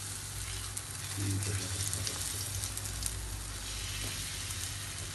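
Semolina batter sizzling in hot oil in a non-stick frying pan, with fine crackles, while a steel ladle spreads it around.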